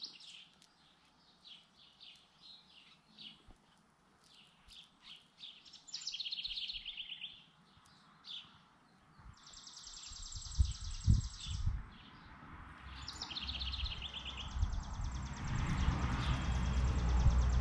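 Songbirds singing: chirps and repeated buzzy trills, with a long high buzzing trill that comes in about nine seconds in and returns near the end. A low rumble builds from about ten seconds in and is loudest near the end.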